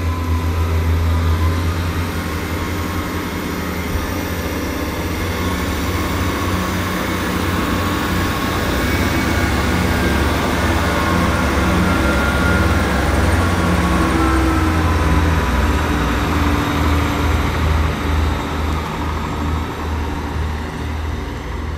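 Class 158 diesel multiple unit pulling away, its underfloor diesel engines running under power with a steady low rumble. The sound builds to its loudest about halfway through, then eases off as the train moves away.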